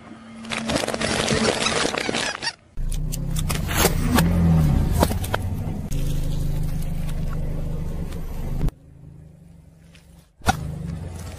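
Car rolling slowly over objects under its tyre: a low steady engine hum with scattered sharp cracks and crackles as things give way, after a couple of seconds of dense rushing noise. The sound breaks off abruptly twice between shots.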